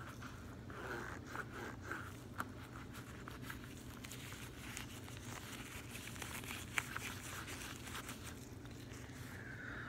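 Latex-gloved hands rubbing and squeezing a deflated latex balloon: soft rubbery rustling and crinkling with many small clicks, one sharper click about seven seconds in.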